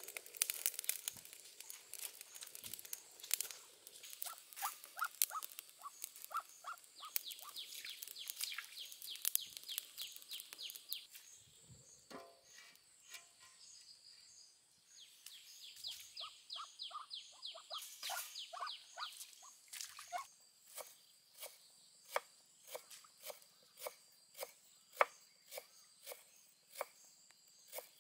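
Wood fire crackling in a clay stove, with runs of quick clicks. From about two-thirds of the way in, a knife chops garlic on a wooden board in steady strokes, a little more than one a second.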